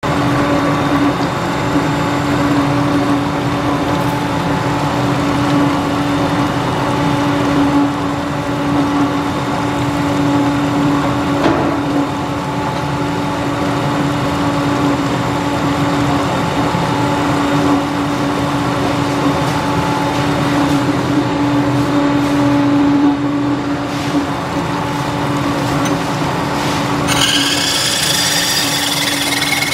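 Centerless grinder running with a steady machine hum and a strong steady tone. About three seconds before the end, a high-pitched whine starts and slowly rises in pitch.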